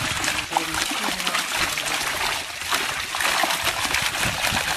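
A large catch of fish thrashing in shallow water trapped in a net, a dense, continuous splashing and spattering made of many small rapid splashes.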